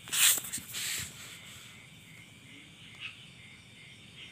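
Crickets chirring steadily in the background, with two brief hissing scrapes in the first second, the louder one first.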